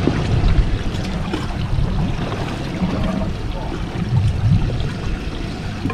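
Water sloshing and trickling around a small fishing boat, with a heavy, uneven low rumble and a few faint voices.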